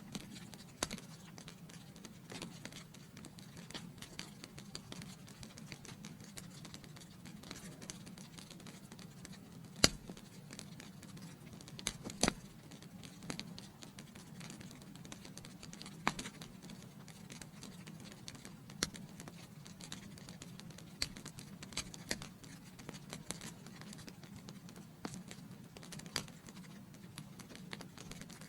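Wood fire in a fireplace crackling, with frequent sharp pops over a steady low sound of burning. One pop about ten seconds in stands out as the loudest, and another strong one follows a couple of seconds later.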